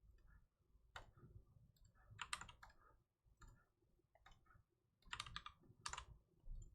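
Faint typing on a computer keyboard: a few short clusters of clicks and taps with quiet gaps between them.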